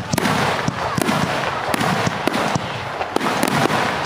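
Fireworks display going off: many sharp cracks in quick, irregular succession over a dense, continuous crackle.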